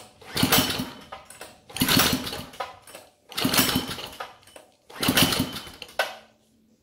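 Predator 212 single-cylinder engine pulled over four times on its recoil starter, about one pull every second and a half, each a short rush of rope and cranking with a click near the end. The spark plug is out and a compression gauge is fitted: the engine is being cranked for a compression test.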